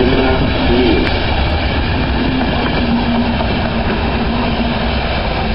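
Passenger coaches of an express train, hauled by an electric locomotive, rolling past on the track with a steady noise of wheels and running gear.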